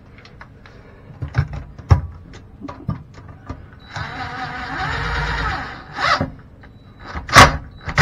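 Cordless drill/driver running for about two seconds, midway through, as it tightens a nut onto a toilet seat's hinge bolt. Before it come light clicks of small hardware being handled, and after it a few sharp knocks, the loudest near the end.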